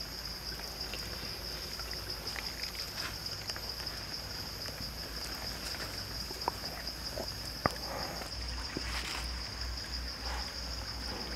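A steady high-pitched insect drone over an outdoor background hush, with two sharp clicks a little past halfway.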